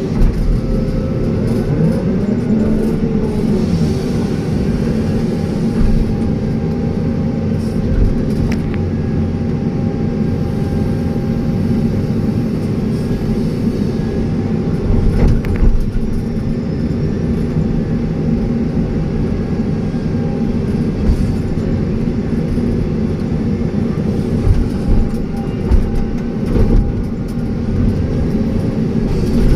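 Excavator's diesel engine running steadily under load, with faint rising and falling whines and a few sharp knocks, around a quarter and half of the way through.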